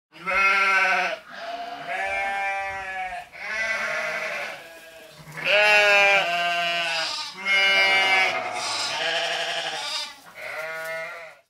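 Bleating of goats or sheep: a string of long, wavering bleats, one after another with short breaks between them.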